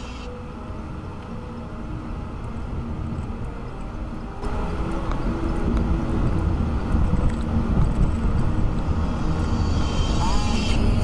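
Car engine and tyres on snow, heard from inside the cabin as the car pulls away and drives in the snow. The rumble gets louder about four and a half seconds in as the car picks up speed.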